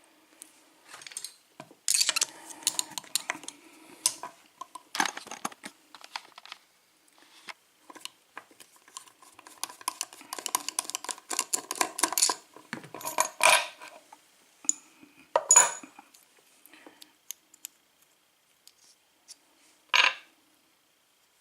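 Small metal parts of an opened Lockwood pin-tumbler padlock clicking and clattering as the lock is handled: scattered ticks, a long run of rattling in the middle, and a few sharper clacks, the loudest about two-thirds of the way in.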